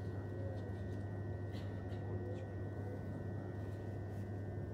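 Interior noise of a moving London Overground electric train: a steady low rumble with a steady high-pitched whine over it and a few faint ticks.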